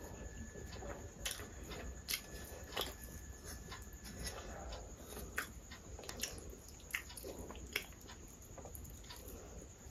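Close-miked eating sounds: chewing with sharp mouth clicks scattered every second or so, and the soft squish of fingers mixing curry into rice.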